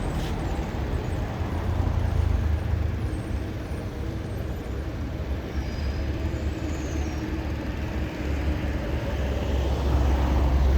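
Steady low engine rumble with a faint hum, swelling a little about two seconds in and again near the end.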